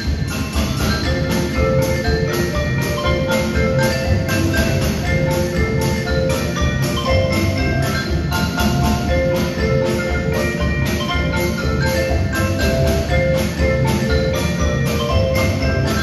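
Percussion ensemble playing a march arrangement of an Irish drinking song: marimbas and other mallet keyboards carry the tune over a steady beat of about three strokes a second.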